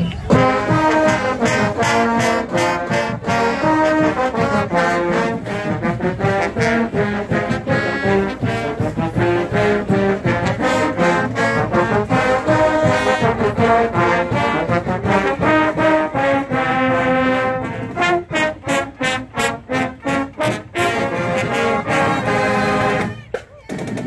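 Marching band brass section of mellophones, trumpets and trombones playing a tune together. Around three-quarters of the way through it plays a run of short, punched notes, then breaks off briefly just before the end.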